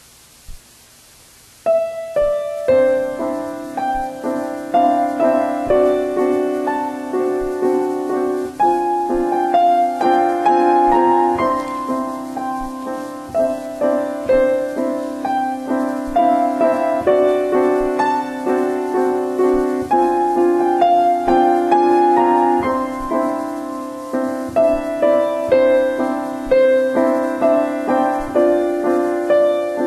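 Solo piano playing, with held chords under a melody line, starting about two seconds in after a short click.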